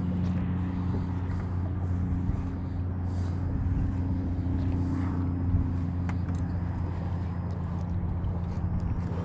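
A boat motor running with a steady, low, even hum.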